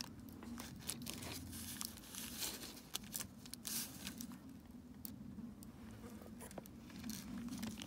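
Clear plastic wrapped around a lock cylinder crinkling and rustling as it is turned in the hands, in a string of small irregular crackles.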